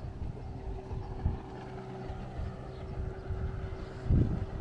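Outboard motor of a small boat passing on the river, a steady drone. Two low thumps come through, about a second in and, louder, near the end.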